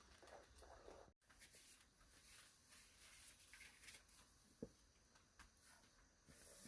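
Near silence: faint room tone, with one soft knock a little past the middle.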